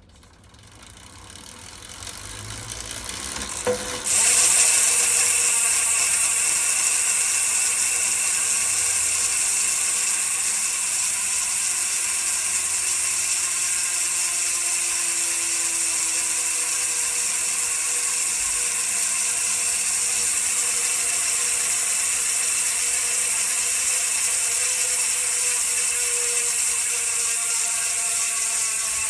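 Vision Metron 37 SL rear wheel's freehub buzzing: the pawls ratchet in a rapid, steady click-buzz as the wheel freewheels. It builds up over the first few seconds and jumps louder about four seconds in, then holds steady while the wheel slowly loses speed.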